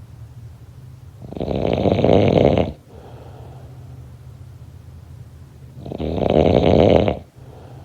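Snoring: two long, loud snores about four and a half seconds apart. Each swells over about a second and then stops abruptly, with much quieter breathing between them.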